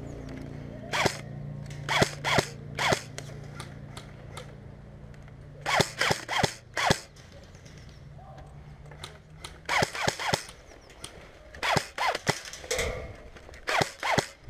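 Airsoft rifle firing semi-auto shots: sharp pops in short strings of two to five, with pauses of a few seconds between strings.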